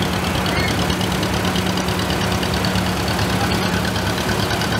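Antique farm tractor engines running at slow parade pace, with a John Deere two-cylinder tractor passing close. The engine note is steady, with a regular pulsing beat.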